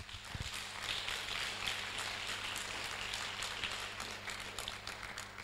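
Audience applauding: a fairly faint patter of many hands clapping that tails off near the end, over a steady electrical hum.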